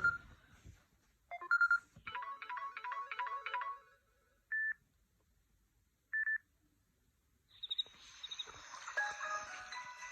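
Samsung Galaxy S3 mini ringtones playing from the phone's speaker, short excerpts one after another. A steady tone cuts off at the start, then comes a short tone, a quick run of repeated electronic notes, and two short single beeps a couple of seconds apart. About three-quarters of the way in, a fuller melodic ringtone begins.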